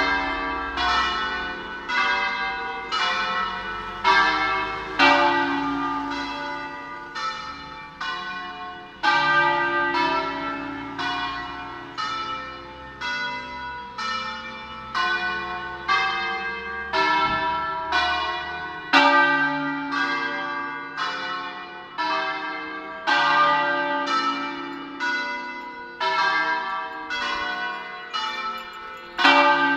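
Several church tower bells rung in turn, about one to two strikes a second, each strike ringing on into the next. The sequence repeats every few seconds, with a louder strike at the start of each round.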